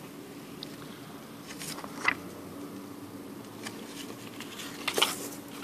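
Paper banknote being handled and turned over: short crisp rustles of the note at about two seconds and again at about five seconds, over a steady low hum.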